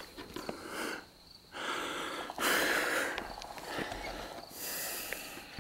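A person breathing hard close to the microphone: about five noisy breaths in and out, roughly one a second.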